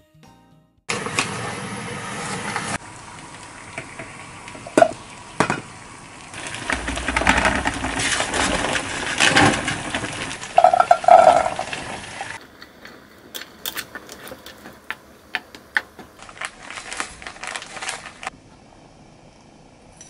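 Kitchen preparation sounds: utensils and dishes clinking and knocking over a steady hiss, in a few separate takes that change abruptly about 3, 12 and 18 seconds in.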